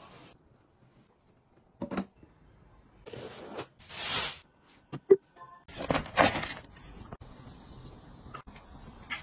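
A string of short handling noises: a loud rustle of plastic sheeting being pulled off a boxed appliance about four seconds in, then a couple of sharp clicks and another rustling scrape.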